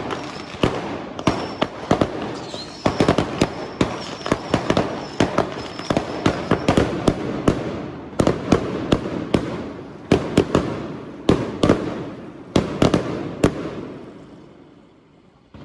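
Small consumer fireworks going off in a rapid, irregular string of sharp bangs and crackles, several a second, with a faint high whistle in the first half. The bangs stop about thirteen seconds in and the noise fades away.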